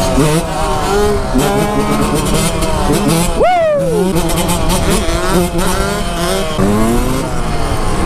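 Suzuki RM125 two-stroke dirt bike engine revving up and down as it is ridden, with one sharp rev that rises and falls quickly about three and a half seconds in. Other motorcycle engines run underneath it.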